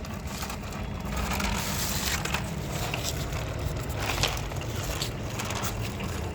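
Plastic toy vehicles being handled and pushed along, a steady crunching scrape with a few sharp clicks.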